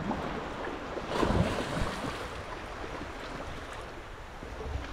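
Surf washing in the shallows with wind on the microphone, a wave swelling louder about a second in.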